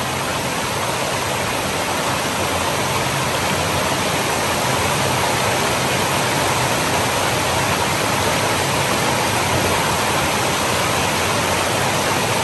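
Steady, fairly loud rush of flowing water from a stream or small waterfall, growing slightly louder over the stretch.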